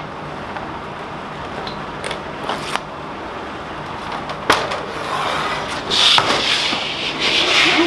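Handling noises of a picture frame and a large sheet of paper: a few sharp clicks and knocks as the frame is moved on the table, then paper rustling for the last two seconds.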